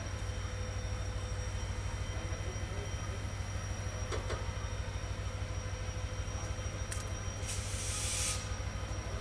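Passenger train running on the track, heard from a coach: a steady low rumble with a faint steady ringing tone, and a short hiss about eight seconds in.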